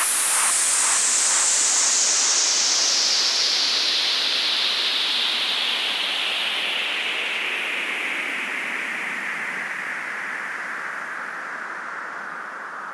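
A long electronic noise sweep from a dance-music soundtrack: a hiss falling steadily in pitch and slowly fading, as the beat dies away in the first second.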